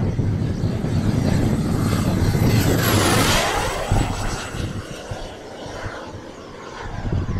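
The JB-130 turbine of a Skymaster F-100 RC model jet whining as the jet flies past. About three seconds in, the high whine slides down in pitch as the jet passes, and then the sound fades.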